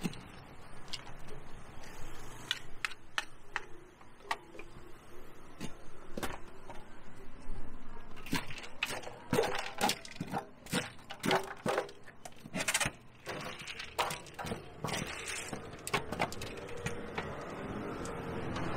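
Irregular sharp knocks and clicks of hand tools working puffed-rice cakes, sparse at first and coming thick and fast through the middle.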